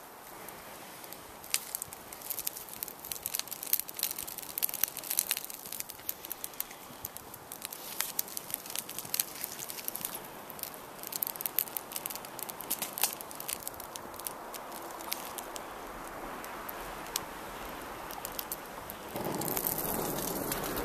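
A smouldering dry-grass tinder bundle with char cloth crackling sharply as it is blown on in long breaths. Near the end the sound swells as the bundle bursts into flame.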